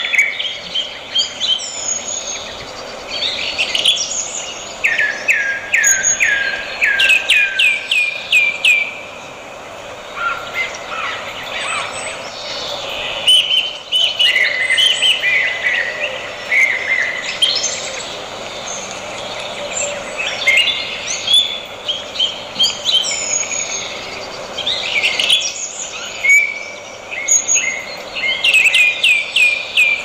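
Wild birds singing and chirping throughout, with varied whistled calls that include runs of quick downward-sweeping notes, over a faint background hiss.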